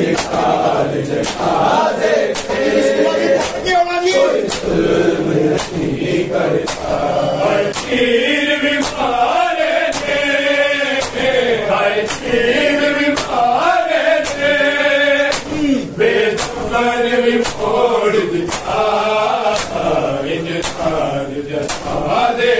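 A group of men chanting a noha, a Shia lament, in unison over a steady beat of open-handed slaps on bare chests (matam), roughly one slap every two-thirds of a second.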